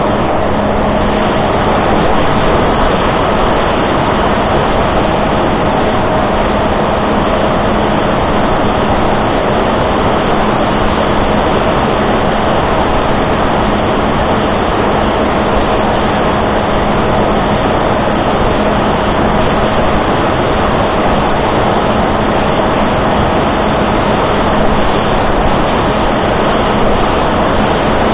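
Electric pusher motor and propeller of a Reptile S800 RC flying wing running at a steady pitch, with loud airflow rushing over the onboard camera's microphone in flight.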